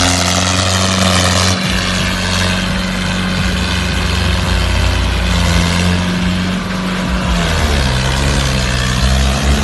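Tractor diesel engine running hard under the heavy load of a large sugarcane trailer. Its note holds steady and then shifts in pitch a few times, about a second and a half in, around the middle, and near the end.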